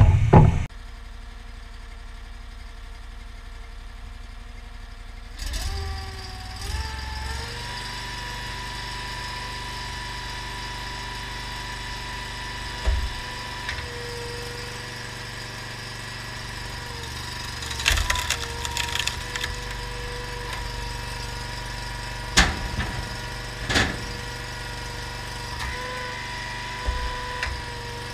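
Honda GX690 V-twin engine running steadily at about half throttle, driving a homemade hydraulic log splitter. A loud knock at the very start, and several sharp cracks of wood splitting in the second half.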